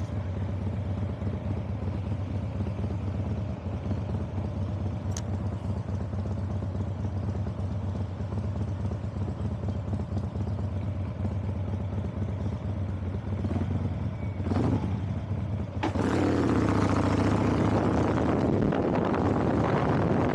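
Vehicle engine running steadily while driving. About 16 seconds in, a loud rushing of wind and road noise comes in over it.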